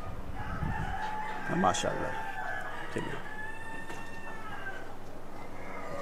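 Rooster crowing in long, drawn-out calls.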